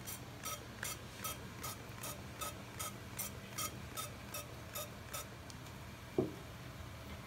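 Gas stove burner igniter clicking evenly, about three clicks a second, stopping about five seconds in. A single short knock follows about a second later.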